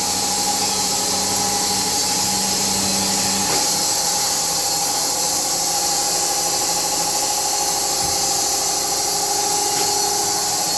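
Automatic band sawmill cutting through a hardwood log: a steady hiss of the band blade in the wood over a steady machine hum. A lower hum drops out about three and a half seconds in.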